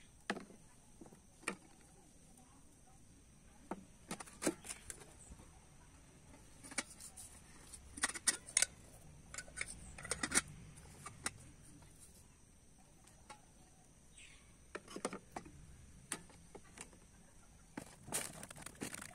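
Scattered light clinks and knocks of a metal camping cookware set being handled, a lid being fitted onto a small kettle. A steady high whine runs underneath.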